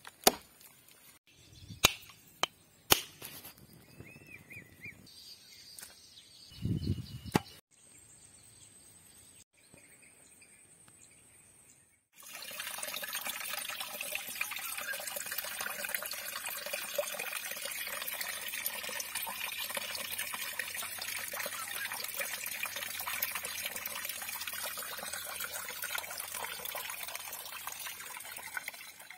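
A few sharp knocks, then from about twelve seconds in a small stream of water flowing and splashing steadily over tree roots.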